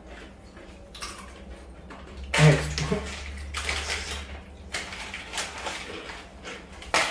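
Crinkling plastic snack bag as a hand rummages in it for sweet potato chips, in irregular rustling spells. About two and a half seconds in there is a short, louder voice-like sound.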